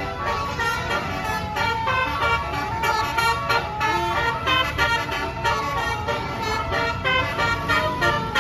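Basuri telolet multi-tone bus horn playing a fast tune in quick stepped notes, with the bus engine running underneath.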